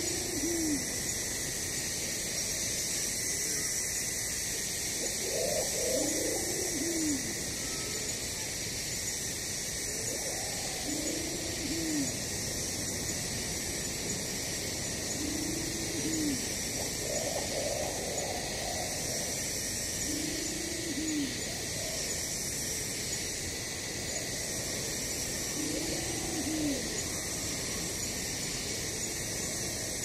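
Rainforest ambience: insects stridulating in a constant high-pitched chorus, with a low, arching cooing bird call repeated about every five seconds.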